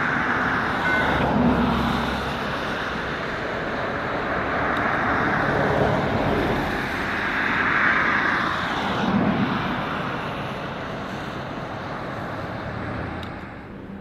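Vehicle noise: a dense, steady rush with several swells, dropping off near the end.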